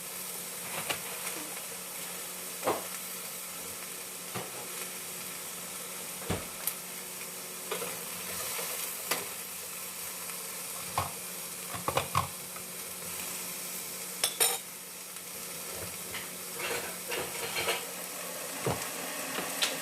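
Vegetables (bottle gourd, squash, bell pepper and string beans) sizzling in a pan, with a steady hiss. A cooking utensil stirs them, clinking and knocking against the pan now and then.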